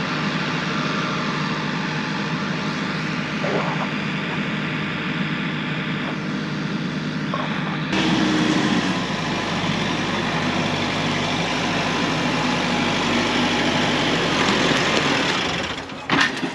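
Tractor engine running steadily under load. About halfway through it gets louder and deeper, then it dies out near the end as the engine stalls.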